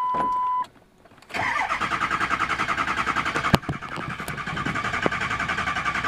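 Ford 6.0 Powerstroke diesel cranking on its starter with a fast, even pulse, turning over without catching. The owner puts this crank-no-start on the engine not building oil pressure after a hot shutdown. A short steady beep sounds just before the cranking begins, and there is one sharp click partway through.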